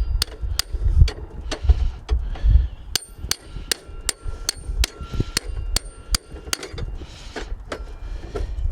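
Hammer tapping a snowblower axle into new brass bushings: a run of sharp metallic taps, about three a second in the middle of the stretch, each with a brief ringing note.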